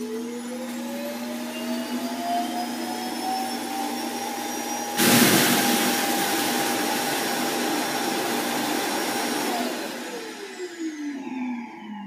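Roomba i8+ self-emptying dock (Clean Base) running its evacuation motor to suck debris out of the robot's bin. A whine rises as the motor spins up, about five seconds in a loud rush of air sets in, and near the end the whine falls away as the motor winds down. It is one of repeated attempts by the base to empty the bin.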